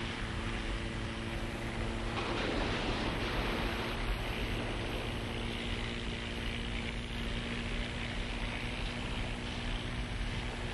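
Small boat's motor running steadily, a low hum over the rush of water.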